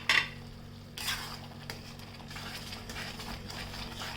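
A metal spoon knocking and scraping against a cooking pan as raisins are tipped into thick halwa and stirred, with two sharp knocks, one at the start and one about a second in.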